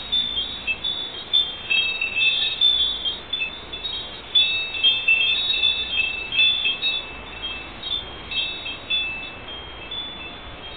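A hanging tubular wind chime ringing irregularly, a scatter of high, clear tones that overlap and fade. It is heard through a security camera's microphone.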